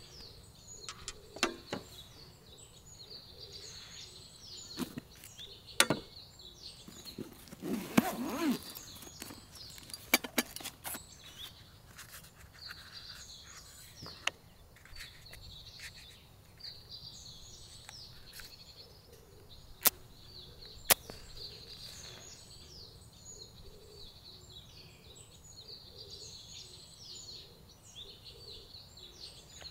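Outdoor ambience of birds chirping continuously, broken by scattered sharp clicks and knocks. The loudest of these come about a quarter of the way in and twice about two-thirds of the way in, with a brief clatter near the middle.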